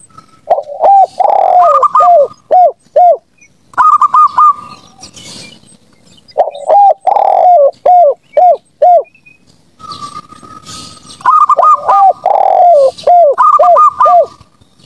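A zebra dove and a spotted dove cooing, their calls overlapping. There are three bouts of repeated phrases, each a longer coo followed by a run of short, evenly spaced coos. One bird's calls are clearly higher-pitched than the other's. The bouts are separated by short pauses about four seconds and nine seconds in.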